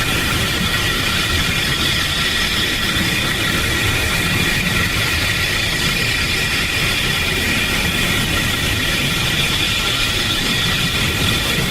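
Steady mechanical drone: a low rumble under several high, level whining tones, unchanging throughout.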